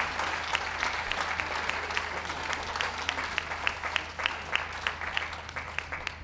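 Crowd applauding a win, many hands clapping steadily and thinning a little toward the end.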